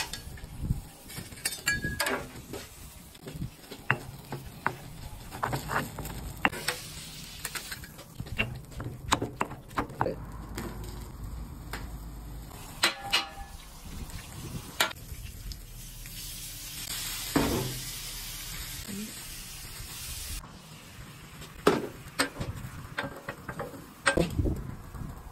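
Metal spatulas clacking and scraping on a flat-top griddle while food sizzles on the hot plate, with stretches of steadier frying hiss.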